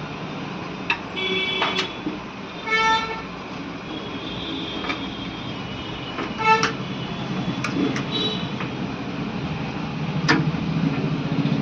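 Several short horn-like toots and scattered sharp clicks over a steady background hum.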